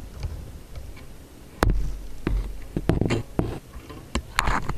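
Irregular close knocks and rubbing thumps over a low rumble, starting suddenly about one and a half seconds in: handling noise on the camera fixed to the kayak.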